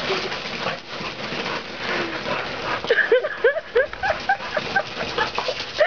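A small ground firework hissing and sputtering as it sprays sparks. About three seconds in, a dog breaks into rapid, excited yips and whines, several a second.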